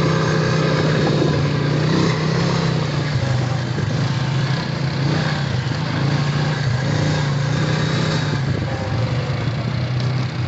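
Honda Rancher ATV engine running steadily under way on a trail ride.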